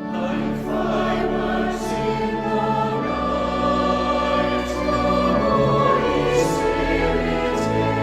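Choral music starting abruptly: a choir singing sustained chords over a bass accompaniment.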